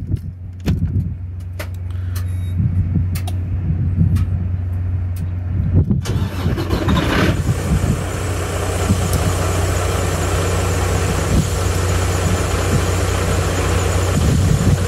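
Freightliner Cascadia semi-truck's diesel engine started and running with a steady low drone, with a few clicks near the start. About six seconds in, a louder rushing noise comes in and holds.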